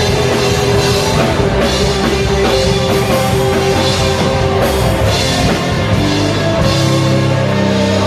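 Rock music with drums and distorted guitar playing steadily.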